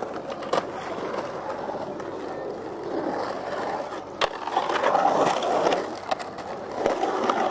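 Skateboard wheels rolling on rough concrete, growing louder in the middle and near the end, with a few sharp clacks of the board against the concrete.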